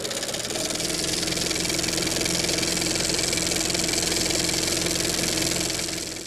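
Film projector running as an intro sound effect: a steady mechanical whirr with a very fast, fine clatter and a low hum. A whine rises at the start as it comes up to speed, and the sound fades out near the end.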